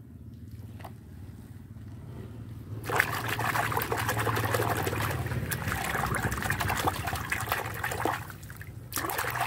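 A hand scrubbing a muddy plastic toy figure in a basin of soapy water, splashing and sloshing the water. The splashing starts about three seconds in, pauses briefly near the end, then starts again.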